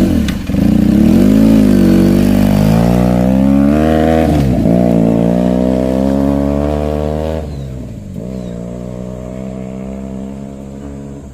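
Benelli TNT 300's 300 cc parallel-twin engine revving up and down several times, then settling to a steadier, quieter run about seven and a half seconds in.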